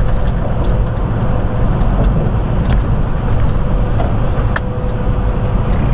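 Semi truck cruising at highway speed, heard from inside the cab: a steady low engine and road rumble with a faint constant hum and a few light, irregular ticks.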